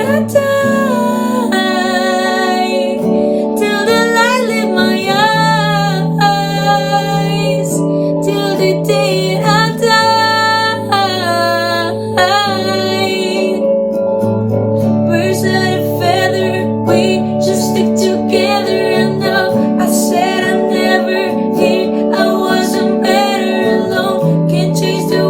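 Female voice singing a slow pop ballad over acoustic guitar, with held and gliding sung notes over steady strummed chords.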